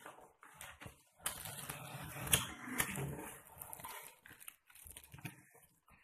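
Packaging being peeled and pulled open, with plastic film or tape crackling and rustling in irregular bursts and two sharper cracks near the middle.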